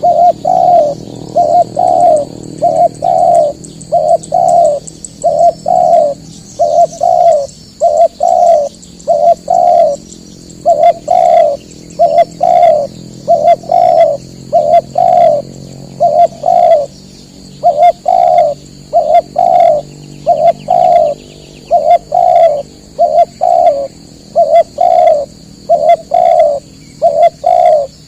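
Spotted dove (tekukur) cooing close by, a long, unbroken run of short coos in twos and threes, a few notes every second.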